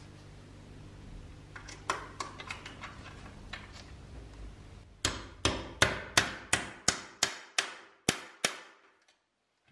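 Claw hammer tapping a small steel pin into a pressed-steel Tonka T6 toy bulldozer: a few light taps, then about ten sharp metallic blows at roughly three a second, each ringing briefly, stopping shortly before the end.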